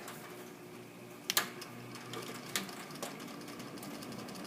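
A few sharp clicks and knocks from handling the box fan, two of them clear, about a second and a half and two and a half seconds in, over a faint steady hum.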